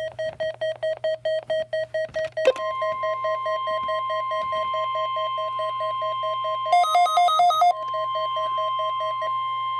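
Electronic alarm beeping, about five beeps a second, with a higher-pitched run for about a second near the seven-second mark. About two and a half seconds in, after a click, a steady tone near 1 kHz starts and holds to the end: the 1050 Hz warning alarm tone of NOAA Weather Radio.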